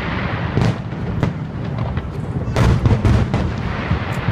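Aerial firework shells bursting in quick succession over a continuous crackling of many small stars. A low rumble carries throughout, and the sharpest booms come in a cluster a little past halfway.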